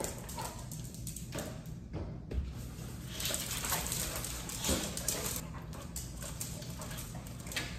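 A dog moving about while its leash and harness are handled: scattered light knocks, scuffs and rustling, busiest about three to five seconds in.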